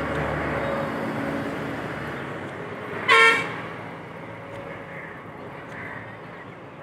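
Road traffic: a passing vehicle's rumble fades out after about two seconds. A single short vehicle horn toot comes about three seconds in, the loudest sound here.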